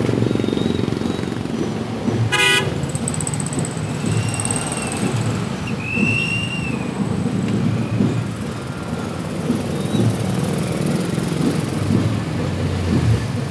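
Motorcycles and cars running slowly in traffic, a steady low engine and road rumble, with one short vehicle horn toot about two seconds in.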